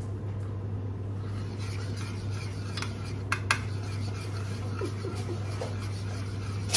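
A spoon stirring a thick white sauce in a stainless steel saucepan, scraping the pan with a few sharp metallic clinks against its side, over a steady low hum.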